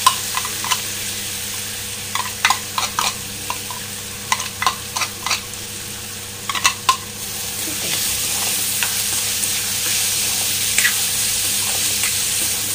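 Ground onion, ginger and garlic paste sizzling as it hits hot oil in an aluminium kadhai, with sharp clinks of the spoon and jar against the pan as the paste is scraped in and stirred. The sizzle grows louder from about eight seconds in.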